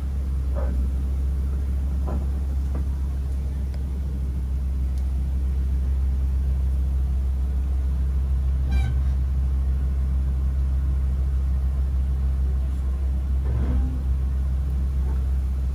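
Open-sided safari ride truck's engine running with a steady low rumble as the truck creeps slowly along.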